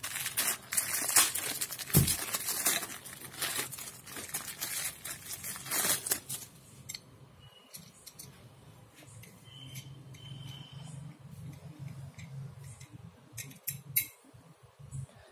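Plastic packaging crinkling and rustling as a soldering iron stand is unwrapped, with a thump about two seconds in. After about six seconds it turns quieter, with scattered light clinks and taps as the stand's parts are handled.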